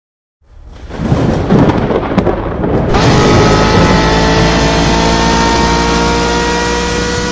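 Cinematic intro sound design: a deep, thunder-like rumbling swell builds in about half a second in. From about three seconds in, a loud whooshing riser takes over, its layered tones slowly climbing in pitch.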